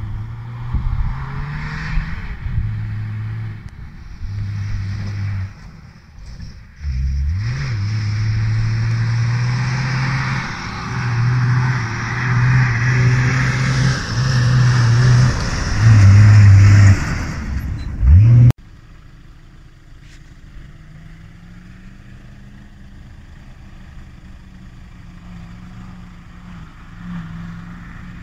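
Off-road 4x4's engine working hard, its revs holding and then stepping up and down, with rushing noise from tyres and wind. About two-thirds of the way through the sound cuts off abruptly to a much quieter, steadier engine drone.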